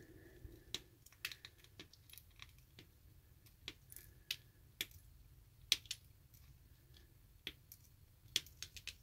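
Flush side cutters snipping the excess leads of through-hole diodes on a circuit board: a string of faint, sharp clicks at irregular intervals.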